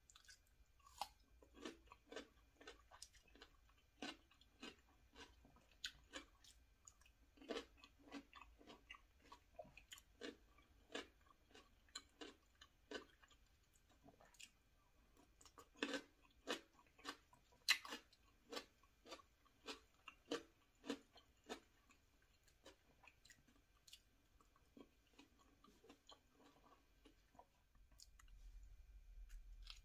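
A person chewing crisp raw cucumber with crunching bites, a steady run of one or two crunches a second, with the loudest crunches about halfway through and the chewing dying away near the end.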